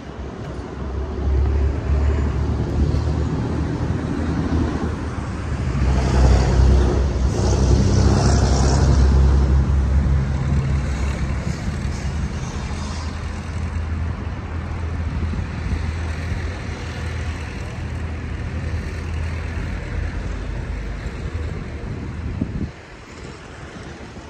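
Street traffic with a large engine droning low and steady close by, loudest a few seconds in; the drone cuts off suddenly near the end.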